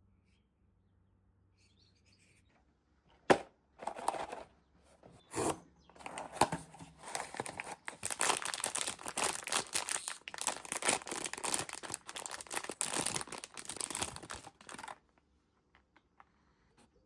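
Blind-box packaging being torn open and crinkled by hand: a sharp snap about three seconds in, a few short rips, then a long stretch of dense crinkling that stops near the end.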